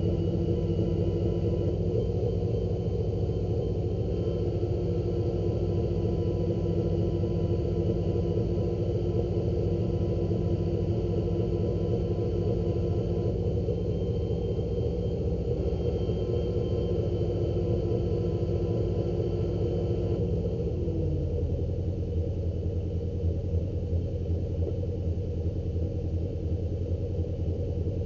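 An engine running steadily at a raised speed, then slowing to a lower idle about twenty seconds in, while the service truck's crane is worked from a pendant control.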